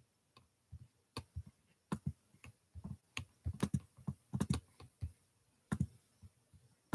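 Typing on a computer keyboard: quiet, irregular key clicks coming in short runs, busiest in the middle.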